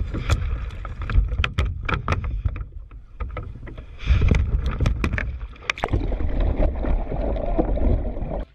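Water splashing and thrashing against a plastic kayak, with many sharp knocks and clatters on the hull and paddle over a heavy, deep rumble of the camera being jostled in the boat. The noise cuts off suddenly at the end.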